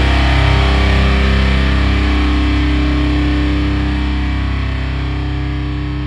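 Blackened metalcore music: a distorted electric guitar chord with a low bass note held and left ringing, slowly fading as the song ends.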